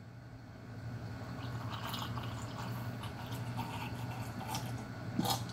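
A man drinking from a wine glass in long gulps, close to the microphone: soft swallowing and liquid sounds, with a small click near the end. A low steady hum runs underneath.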